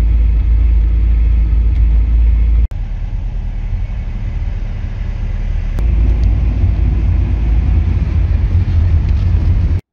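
Steady low engine rumble, heavy in the bass, in three stretches joined by abrupt cuts, the second one quieter.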